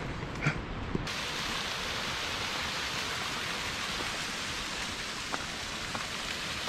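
Steady rush of flowing water from a stream swollen by heavy rain, cutting in abruptly about a second in.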